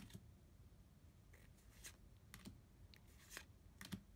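Near silence broken by faint, scattered clicks and rustles of trading cards being flicked through one by one, about half a dozen over the few seconds.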